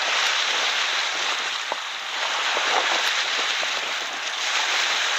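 Strong wind and choppy waves washing onto a rocky shore: a loud, steady rushing hiss.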